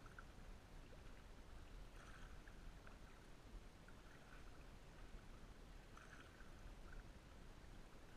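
Near silence: faint water lapping around a float tube, with a few small splashes and a low wind rumble.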